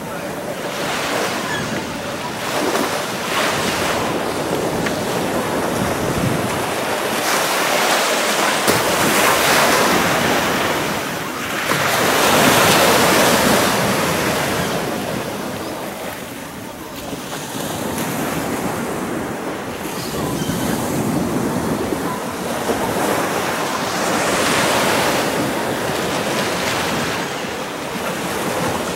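Small waves breaking and washing up a sandy beach, the surf swelling and fading every few seconds as each wave comes in.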